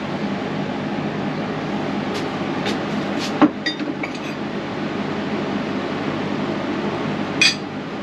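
Pieces of steel clinking and knocking as they are handled, a few light clinks with a sharper knock about three and a half seconds in and another near the end, over a steady fan-like hum.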